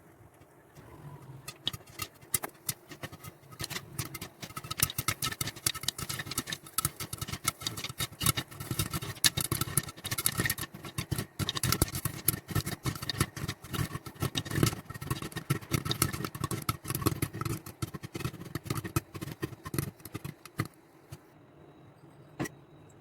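Popcorn kernels popping: scattered pops at first, then a rapid crackle of pops, thinning out and stopping near the end, over a low steady hum.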